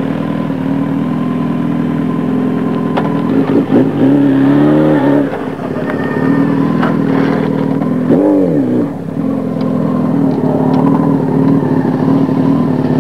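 Motorcycle engines running steadily, with two short revs that rise and fall in pitch, about four and eight seconds in.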